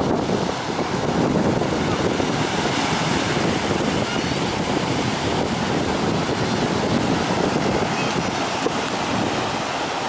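Ocean surf breaking and washing up the sand in a steady wash, with wind buffeting the microphone.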